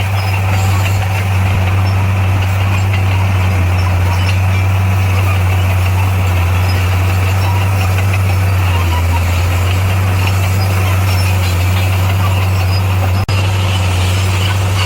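Heavy diesel engine of earthmoving machinery running steadily with a low, even drone, briefly cut off about 13 seconds in.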